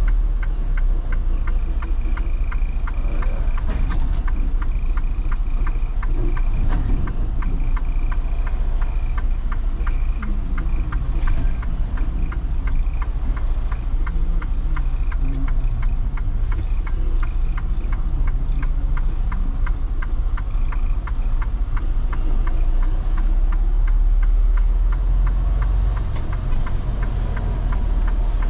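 Diesel truck engine running at low speed, heard inside the cab: a steady low rumble with a fine, even clatter over it as the truck creeps along.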